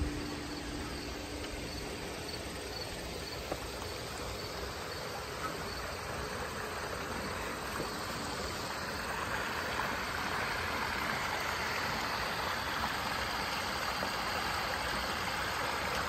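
Steady rush of water running through a backyard pond's stream and waterfall, a little louder from about halfway through.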